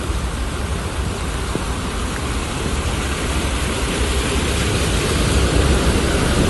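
Heavy rain falling on a flooded street, with a bus driving through the floodwater; the wash of water off its tyres grows louder as it passes close, from about halfway through.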